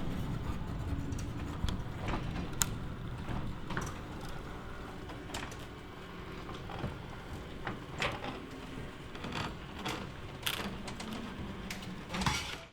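Industrial machinery ambience: a steady low rumble with irregular sharp metallic clicks and clanks scattered over it, a cluster of them near the end.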